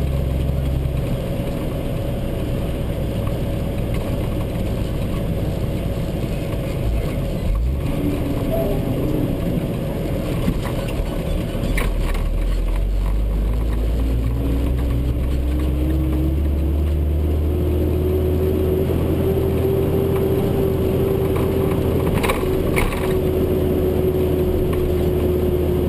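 Truck engine running steadily, heard from inside the cab as a low drone; about halfway through, a whine rises in pitch as the truck gathers speed, then holds steady. A few brief rattles or knocks come through.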